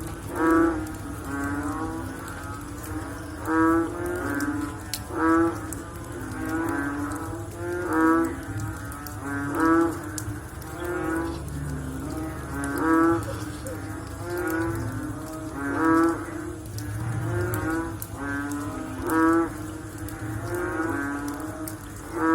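A chorus of frogs calling after rain: many overlapping low, pulsed, mooing croaks, with the loudest calls standing out every two to three seconds.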